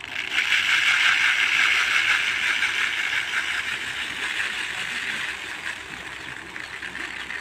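Rice grains poured from a metal bowl in front of an electric fan, streaming down onto a plastic tarpaulin as it is winnowed: a steady pattering hiss that starts suddenly and slowly fades toward the end.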